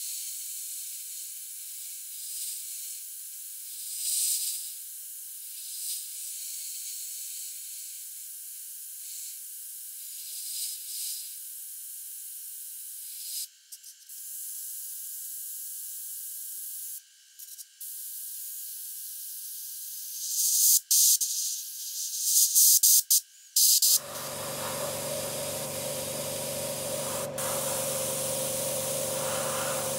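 Airbrush spraying paint, a high hiss that swells in short bursts and cuts out briefly twice. About three-quarters of the way through, a steady hum with a low tone joins it.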